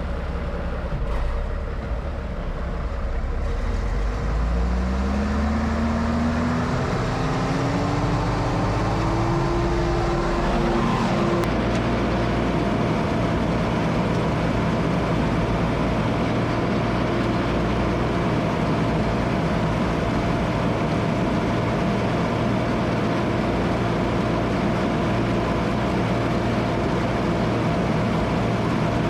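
Tractor-driven straw chopper spinning up to speed over the engine's steady drone. A whine rises in pitch for several seconds and then levels off into a steady hum.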